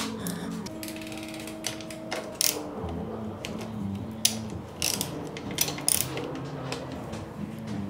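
Hand socket ratchet clicking irregularly as it works a bolt on a mountain bike's rear suspension link loose.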